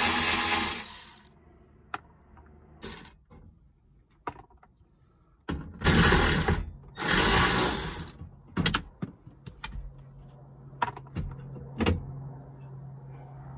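Cordless electric ratchet running in three short bursts, one at the start and two about six seconds in, backing out the bolts of a metal bracket inside a car door. A few sharp metal knocks follow near the end as the loosened bracket is handled.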